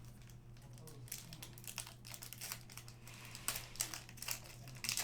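Plastic-foil trading card pack wrapper crinkling as it is handled and opened, in irregular crackles that get louder near the end, over a steady low electrical hum.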